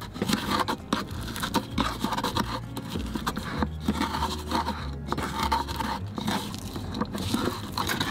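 Wooden pestle grinding pine nuts into a garlic and salt paste in a wooden mortar, twisted round in a circular motion: repeated rough scraping strokes with small clicks.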